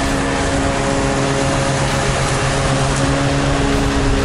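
Steady mechanical hum with a few held tones, shifting slightly in pitch about two seconds in.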